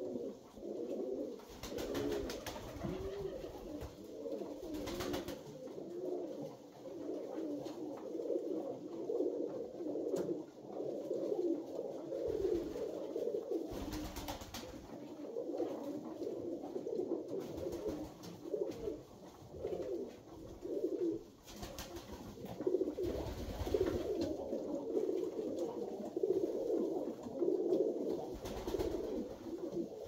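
A flock of Alföldi-Körösi tumbler pigeons cooing continuously, many birds' low, rolling coos overlapping. A few brief, louder noises stand out now and then.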